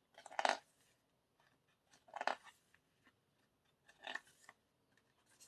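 Three brief rustling scrapes of cardboard and paper album packaging being handled, about two seconds apart.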